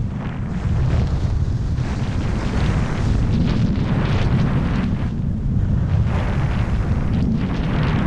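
Wind buffeting the microphone during a fast downhill ski run, a loud steady low rumble, with the hiss of skis carving on groomed snow swelling and fading with the turns.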